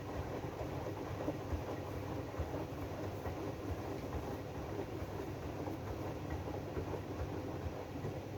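AEG DualSense washing machine running its Drum Clean cycle: a steady low rumble from the turning drum, with irregular soft knocks.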